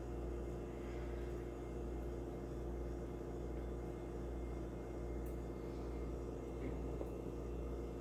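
Steady low hum of room tone, with a few constant tones in it and no distinct events.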